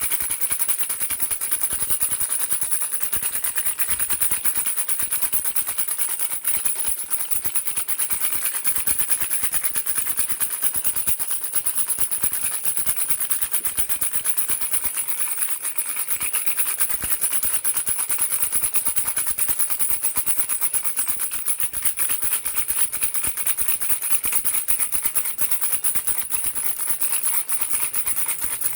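Baby rattle shaken quickly and without a break: a dense, steady stream of rapid clicks.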